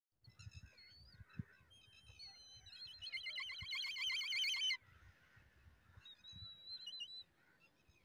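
Young birds of prey calling in the nest: a few thin whistles, then a loud, fast quavering whistled trill lasting about two seconds, and a shorter whistle near the end. Soft low thumps sound underneath.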